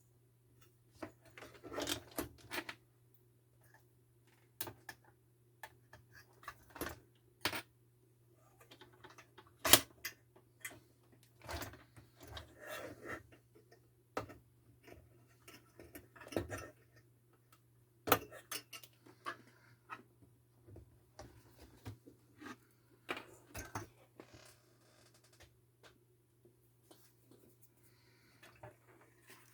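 Irregular clicks, clinks and short clatters of tools and small hard parts being handled during a monitor repair. The sharpest knocks come about ten seconds in and again near eighteen seconds. A faint steady low hum runs underneath.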